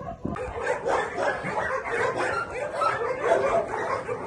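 Many dogs in shelter kennels barking at once, their calls overlapping without a break.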